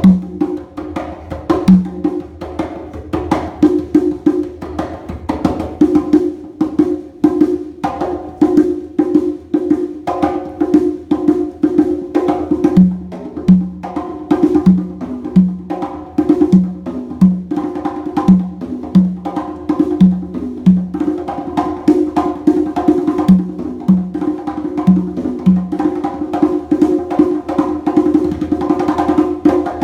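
Live hand-percussion solo on congas: rapid, dense hand strokes ringing on the drum heads. Through the middle stretch a lower drum note comes back about once a second.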